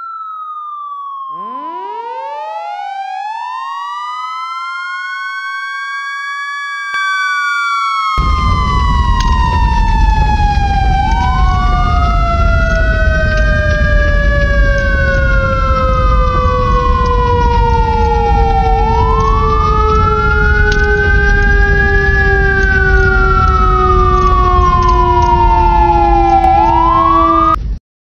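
Fire engine siren sound effect: a falling tone, then the siren winds up from a low pitch and wails slowly up and down, about once every seven to eight seconds. From about eight seconds in a loud rushing noise runs under it, and both cut off suddenly just before the end.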